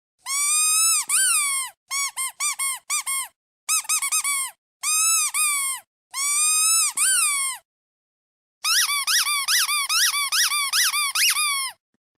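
Squeaky duck toy being squeezed: clear, high squeaks in bursts, some long and drawn out, others in quick runs of short squeaks, with a long fast run of about a dozen squeaks near the end.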